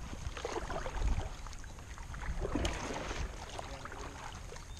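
Kayak paddle strokes through shallow water: two swishing, dripping strokes about two seconds apart.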